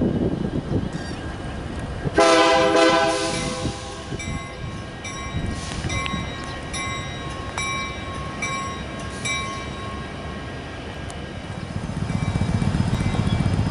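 Diesel locomotive horn sounds one loud blast a couple of seconds in, then fades. A faint ringing repeats about every second for several seconds under a low rumble, and the rumble grows louder near the end as the train draws closer.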